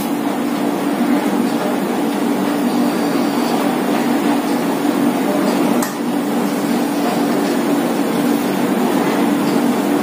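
Steady mechanical hum with a droning low tone over an even hiss, and one faint click about six seconds in.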